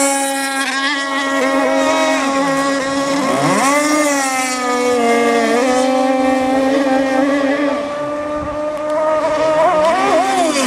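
AquaCraft Razor RC speedboats with QD25 engines running fast on the water: a high engine whine that dips in pitch and climbs again as a boat turns and passes, about three seconds in and again near the end.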